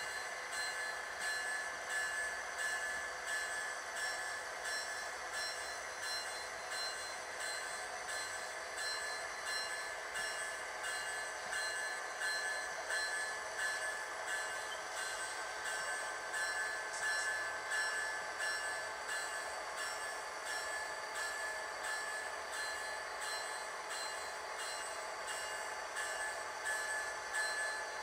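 Model train running: a steady high whine with a regular clicking that swells and fades in a rhythm, as of wheels rolling over track joints.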